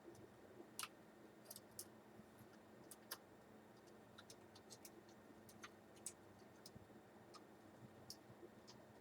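Faint, irregular small clicks and ticks, a couple a second, of a small screwdriver working tiny screws into a laptop's metal slot cover, over near silence.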